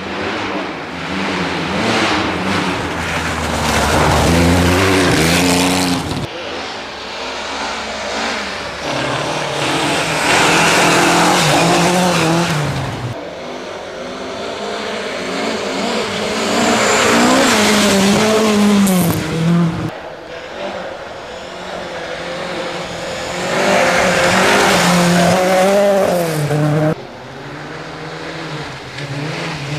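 A succession of historic rally cars passing one at a time, each engine revving up and easing off so its note rises and falls through the bend. The sound cuts abruptly from one car to the next about every six to seven seconds.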